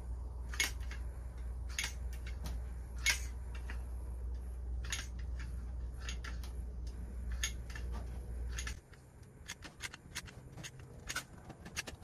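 Scattered small clicks and crackles as a tube of Loctite Power Grab heavy-duty adhesive is squeezed out in beads, over a steady low hum that cuts off suddenly about nine seconds in.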